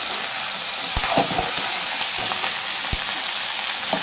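Okra pieces sizzling as they fry in a steel kadai, stirred with a steel spatula that knocks against the pan a few times, about a second in and again near the end.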